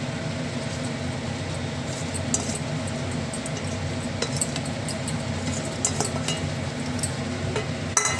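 Spatula clinking and scraping against a steel bowl as masala eggs are spooned out onto rice, light scattered clicks with a sharper clink near the end, over a steady low hum.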